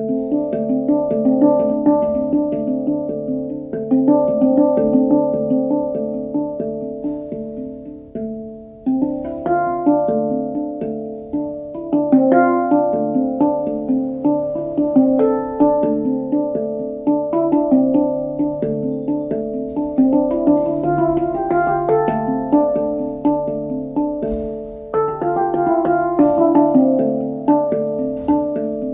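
Nine-note D Kurd handpan of nitride steel played by hand: a steady run of struck notes that ring on and overlap over a held low tone. The playing fades for a moment about eight seconds in, then picks up again.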